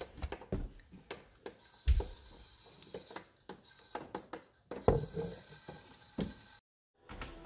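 Irregular light knocks and clattering, the sound of objects being handled and set down, with two louder thumps about two and five seconds in. The sound drops out entirely for a moment near the end.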